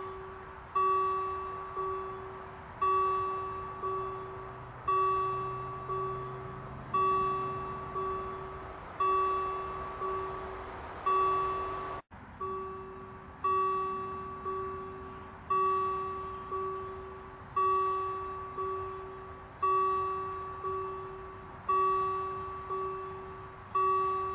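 Swiss railway level-crossing warning bell striking steadily about once a second, louder and softer strikes alternating, each ringing out before the next. The ringing breaks off for an instant about halfway through, then resumes.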